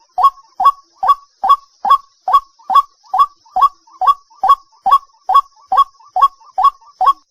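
White-breasted waterhen calling: a fast, even series of loud, short 'kuak' notes, each sweeping quickly upward, at a little over two per second. The run stops abruptly near the end.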